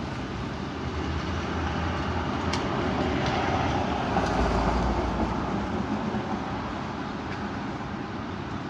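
High wind blowing over the microphone, swelling into a stronger gust with low buffeting about four seconds in, then easing off.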